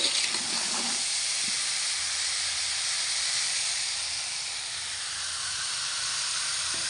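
Shredded mackerel tuna with green chili frying in a pan: a steady sizzle.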